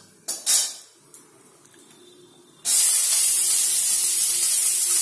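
Chopped onions dropped into hot oil in a kadai, starting to sizzle. The loud, even hiss begins suddenly a little past halfway and holds steady. It comes after two short knocks at the start.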